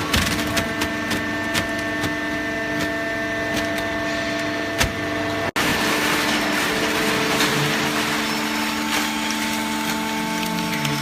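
Hydraulic baling machine running with a steady hum made of several tones, with scattered clicks and knocks; the sound cuts out for an instant about halfway through, and a deeper hum comes in near the end.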